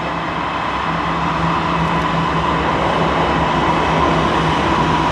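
Norfolk Southern GE Dash 9 diesel locomotives passing at speed, their engines running in a steady rumble with a steady whine on top, getting gradually louder as the units come closer.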